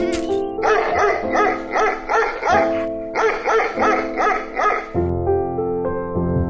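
A dog barking in quick repeated barks, about three a second, in two runs that stop about five seconds in, over gentle background music.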